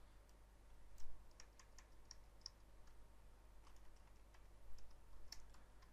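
Faint computer keyboard keystrokes, scattered and irregular, a few quick taps at a time with short pauses between.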